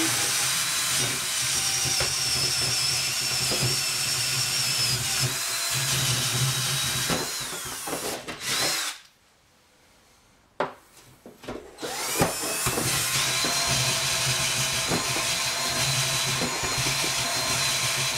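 Power drill running a long bit down through a sink cabinet base and subfloor, a steady motor whine. It stops about nine seconds in, a few knocks follow, then the drill spins back up and runs on steadily.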